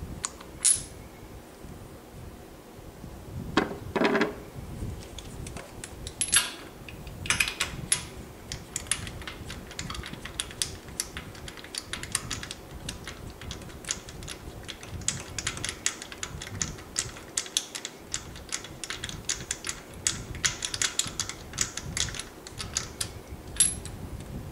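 Ratchet clicking in long quick runs while spark plugs are worked out of the Triumph Spitfire 1500's cylinder head with a deep plug socket, with a few sharp metal clinks of the socket and plugs and a short scrape.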